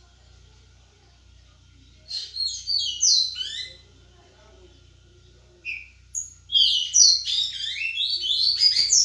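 A songbird singing in two bursts of quick, high chirps that slide downward in pitch: a short phrase about two seconds in, then a longer, busier run from a little past halfway to the end.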